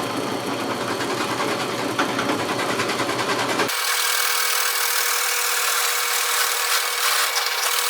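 Power drill with a 1-inch bit running and boring into solid oak, a steady whine over cutting noise. About halfway through the sound changes abruptly: the deep part drops out, leaving a thinner, higher whine.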